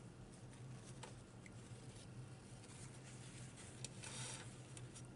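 Faint sounds of food and packaging being handled while eating: a few soft clicks and a short rustle about four seconds in, over a steady low hum.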